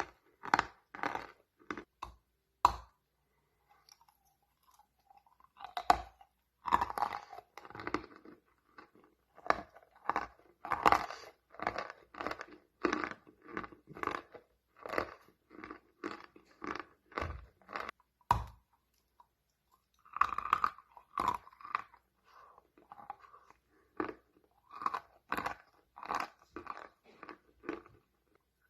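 Chalk being bitten and chewed close to the microphone: crisp crunches about twice a second, pausing briefly twice.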